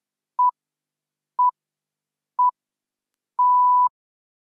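Workout interval timer counting down: three short electronic beeps about a second apart, then one longer beep at the same pitch, signalling the end of the exercise interval.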